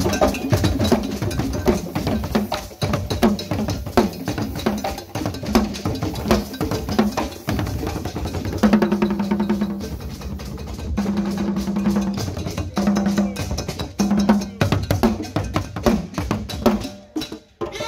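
Live drum ensemble playing fast strokes, with repeated held low tones in the second half.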